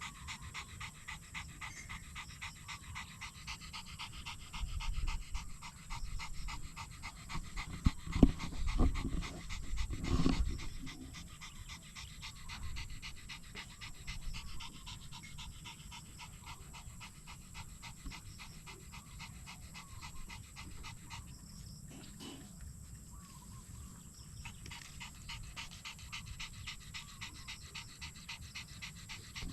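Rapid, steady panting, with a few low thumps and rumbles between about four and eleven seconds in.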